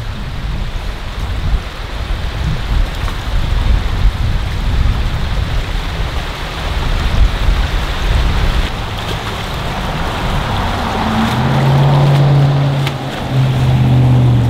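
Wind gusting on the microphone, a heavy rumble over a steady hiss. About eleven seconds in, a low steady hum comes in and holds, with a short break just before the end.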